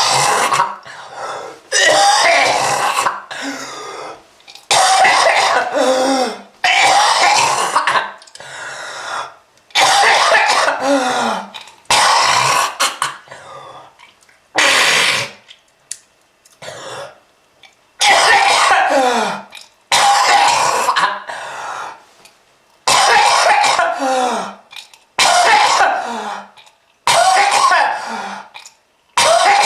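A person coughing hard and clearing the throat in repeated harsh fits, about one every one to two seconds, with a longer pause near the middle. It is the heavy, phlegmy cough presented as a consequence of smoking.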